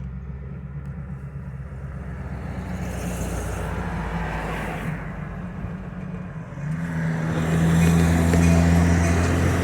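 Road traffic with a vehicle passing, then a train approaching: a low, steady drone comes in about seven seconds in and grows louder.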